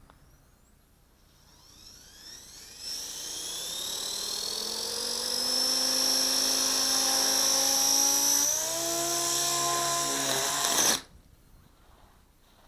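Blade 180 CFX micro RC helicopter's electric motor and rotors spooling up with a rising whine, then running at a steady high pitch. Its tone shifts about three-quarters of the way in, and after a brief louder burst it cuts off abruptly.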